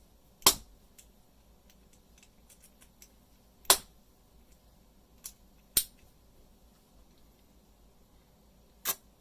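Sharp clicks from a padlock and its small parts being handled and worked by hand: five separate clicks, the loudest about half a second in and near four seconds.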